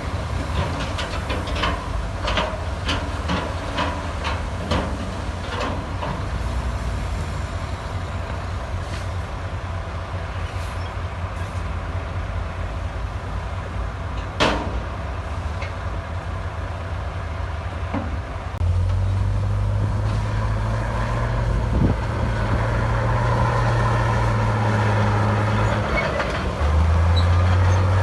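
Heavy diesel earthmoving machinery working, with repeated metallic clanks and knocks, most frequent in the first few seconds and one loud one about halfway. About two-thirds of the way in the engine note grows louder and steadier, as under load, and it steps up again near the end.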